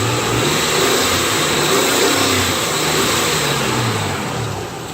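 Nissan VG30E 3.0-litre V6 revved up and down a few times, its pitch rising and falling, then settling back near the end. No lifter tick stands out after a Marvel Mystery Oil treatment, which the owner takes as the tick being cured and the engine being healthy.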